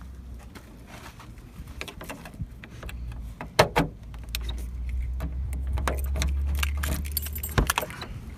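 Keys jangling, with sharp clicks and knocks of handling inside a 1997 Jeep Grand Cherokee. Under them is a low rumble that swells midway and cuts off suddenly near the end.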